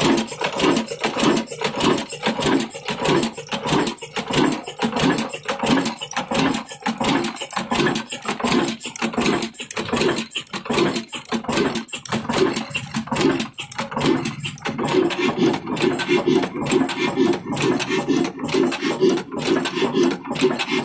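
Old stationary diesel engine of the Ruston Hornsby type running steadily, with a rapid, regular beat of firing strokes and mechanical clatter. About two-thirds of the way in the beat turns denser and lower.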